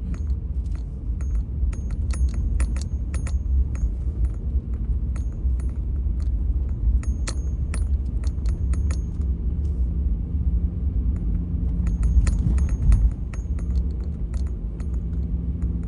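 Car's low road and engine rumble, heard from inside the cabin, while driving slowly over a snow-covered, unplowed street. Light metallic clinks come and go in several clusters, loudest about twelve seconds in.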